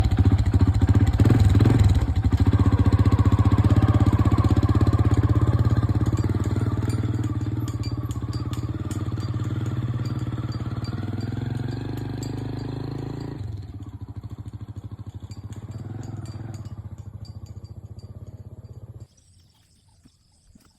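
An engine running steadily, gradually getting quieter, then cutting off abruptly near the end.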